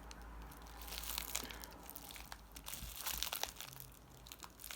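Candy packaging crinkling and rustling as it is handled, in irregular clusters of small crackles.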